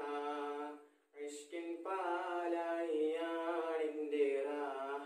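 A teenage boy singing an Islamic devotional song solo, without accompaniment, in long held, slightly wavering notes. He breaks off briefly for a breath about a second in.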